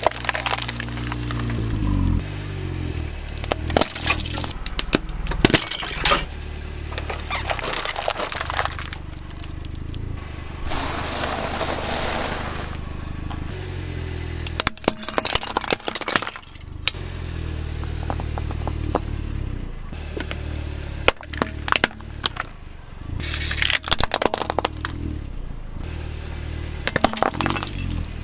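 A car's engine running at low speed while its tyres roll over and crush toys, with repeated clusters of sharp cracking and breaking as they give way.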